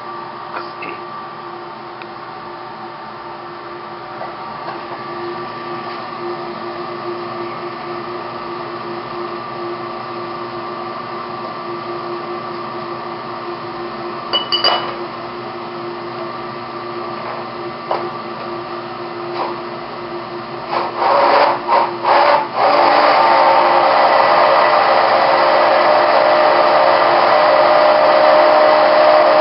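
Steady fan hum. About three-quarters of the way through, a handheld immersion blender starts with a few short pulses, then runs steadily and loudly while it blends a water sample in a plastic beaker.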